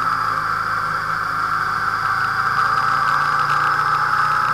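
A motorcycle riding at a steady speed: the engine runs evenly under a constant rush of wind and road noise.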